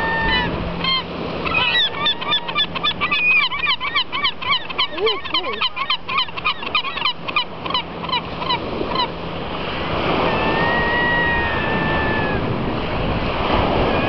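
Gulls calling: a fast run of short, repeated call notes, several a second, for about seven seconds, then a longer drawn-out call. Surf washes on the shore, growing louder in the second half.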